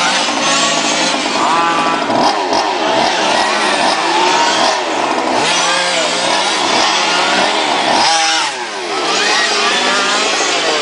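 Several radio-controlled model race cars running on a track, their small, high-revving engines rising and falling in pitch over one another as they accelerate and brake. One revs up sharply near the end, then the sound drops briefly.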